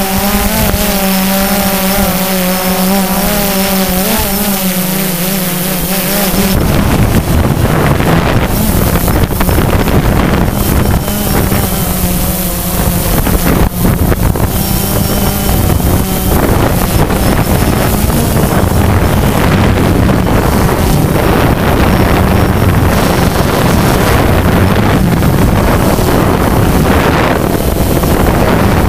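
DJI Phantom 2 quadcopter's motors and propellers humming steadily, heard close from the camera on board, the pitch wavering slightly with small speed changes. About six seconds in, a loud rush of wind on the microphone rises and largely covers the hum.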